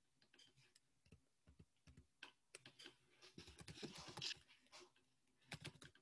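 Faint typing on a computer keyboard: short key clicks, scattered at first, then coming in quick runs from about two seconds in.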